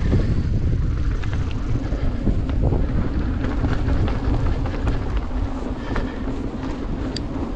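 Mountain bike rolling fast down a dirt track: wind buffeting the camera microphone as a heavy rumble, with tyre noise on the hardpack and scattered small rattles and clicks from the bike. A faint steady hum joins in after about three seconds.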